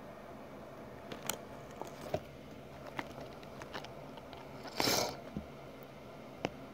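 Faint handling noise from a phone camera held close to the ant enclosure while it is moved around: scattered small clicks and ticks, with one short rustling burst about five seconds in.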